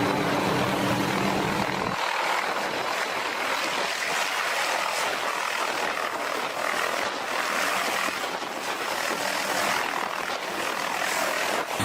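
Helicopter running overhead, heard as a steady rushing noise. A lower engine hum underneath cuts off suddenly about two seconds in.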